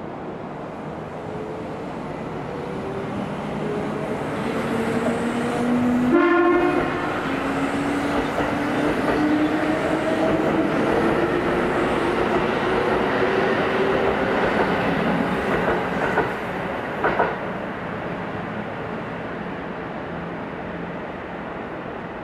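Kintetsu 2800-series electric train accelerating away from a station and passing into a tunnel. It gives one short horn blast about six seconds in, and the traction-motor whine climbs steadily in pitch as it gathers speed. Wheel knocks come near the end as the last cars go by, and the sound dies away into the tunnel.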